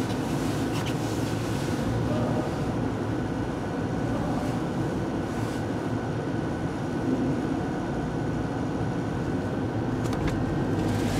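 Steady low mechanical drone on a ferry's enclosed vehicle deck, heard from inside a car creeping off the ship; ship machinery and ventilation blend with the car's own engine. A few light clicks come near the end.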